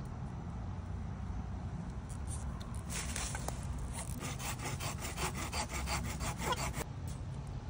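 A plastic cable tie being pulled tight around wooden poles, its teeth ratcheting through the lock in a quick run of clicks, about five a second. The clicks start about three seconds in and last nearly four seconds.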